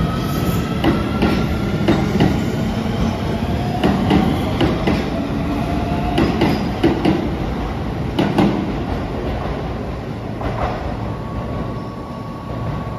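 Keio 7000 series electric commuter train pulling away from the platform: the traction motors whine, rising in pitch as it gathers speed, and the wheels click over rail joints. The sound fades as the train draws away, and a steady tone comes in near the end.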